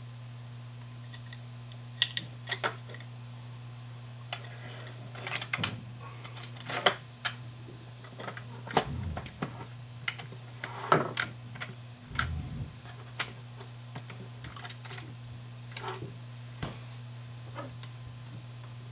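Irregular clicks, taps and light knocks of hard plastic curtain-track parts being handled, fitted and snapped together on a wooden tabletop, over a steady low hum.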